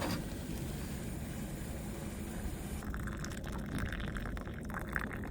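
Boiling water being poured into a cup for tea. A steady high hiss stops about three seconds in, and a liquid pouring sound carries on after it.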